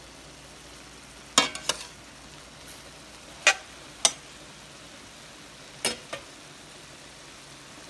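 Broccoli, shrimp and egg sizzling faintly in a metal pan while a metal spatula stirs them, clacking sharply against the pan in three quick pairs of strikes.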